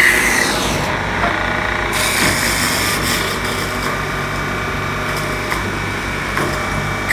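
Hempel VK10 woodworking machine running in automatic mode: a steady hum from its electric motor and hydraulics, with a whine that falls in pitch right at the start as one working stroke ends.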